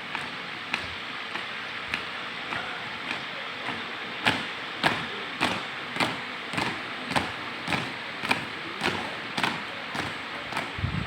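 Marching footsteps of a flag-raising troop stamping in unison at a steady pace, a little under two steps a second, growing louder about four seconds in.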